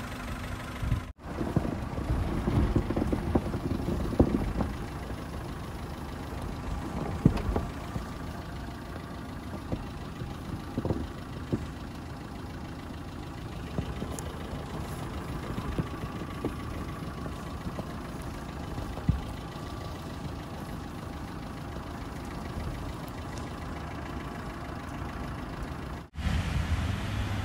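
Suzuki Jimny driving slowly over a snow-covered track, heard close to its front wheel: the engine running, with the tyres rolling through snow and scattered sharp clicks and knocks.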